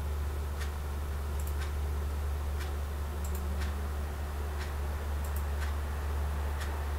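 Regular ticking, about one sharp tick a second, over a steady low hum.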